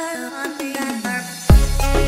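Background music: an electronic track whose bass and beat drop out, leaving a falling glide of tones, then come back in hard about one and a half seconds in.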